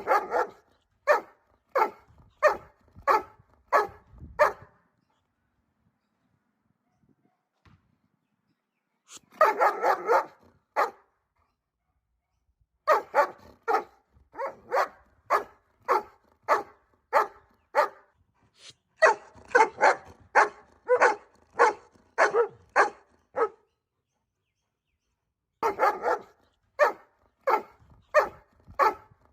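A dog barking in runs of sharp barks, about one and a half a second, with pauses of a few seconds between the runs.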